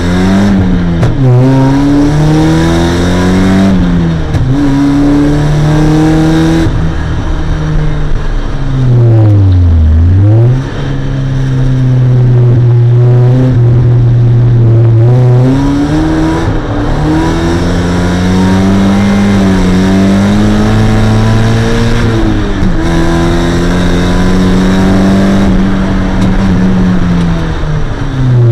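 Mazda MX-5's 1.6-litre four-cylinder engine under hard driving, heard from inside the car. The engine note holds or climbs in each gear and drops at several gear changes, with one sharp dip and quick recovery about ten seconds in.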